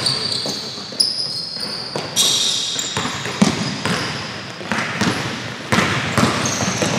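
Basketball being dribbled on a hardwood gym floor, a sharp bounce roughly once a second, with sneakers squeaking briefly and high-pitched as players run and cut.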